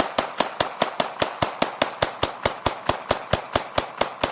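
Glock 17 9mm pistol with an upgraded trigger fired semi-automatically in a fast, even string of about five shots a second. The string stops near the end.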